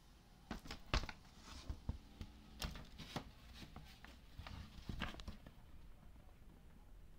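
PVC rubber boots handled and moved about on a wooden board: a run of irregular knocks and taps with some rubbing, the loudest knock about a second in, dying away after about five and a half seconds.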